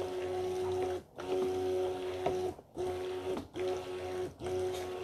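Electric immersion hand blender running in a bowl of soap batter of lye, goat's milk and oils, its motor humming steadily and stopping briefly about four times. It is pulsed on and off while emulsifying the already thick batter toward trace.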